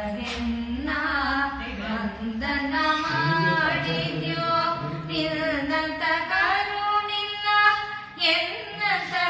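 A woman singing a Kannada devotional song, in a Carnatic style, with long held notes that bend and waver in pitch.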